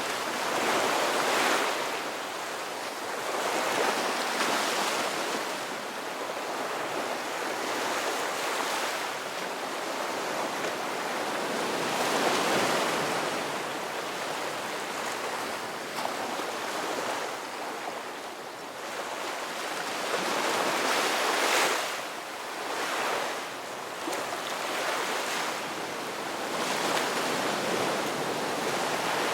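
Ocean waves breaking and washing on a shore, a steady hiss of surf that swells and fades every few seconds, with stronger breakers about a second in, near the middle and around two-thirds through.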